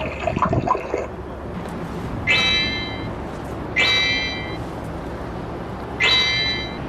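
Three short, high-pitched electronic sound-effect tones from a performer's sound-effect machine, each well under a second long and spaced about one and a half to two seconds apart, over street background noise.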